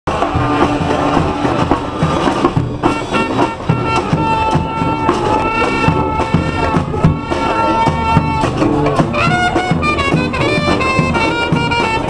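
Street brass band playing: sousaphones, trombones and trumpet holding loud brass lines over a steady beat of snare drums, bass drum and hand cymbals.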